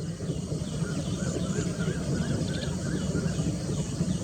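Birds calling: a run of short wavering whistles, each rising and falling, with fainter high chirps, over a steady low rumble.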